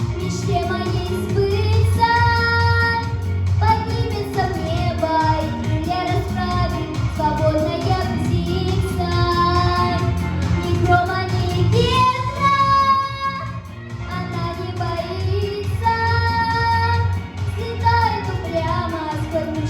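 A young girl singing a song over an instrumental backing track, with brief breaths between phrases.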